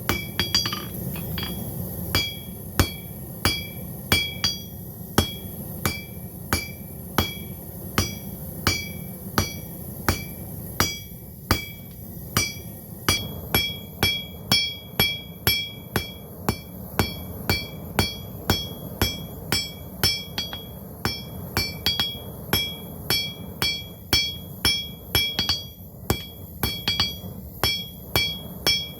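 Hammer blows on hot steel at an anvil while forging a ram's head, struck steadily at about one and a half to two blows a second and quickening about halfway through, each blow leaving a short metallic ring. A steady low rumble runs underneath.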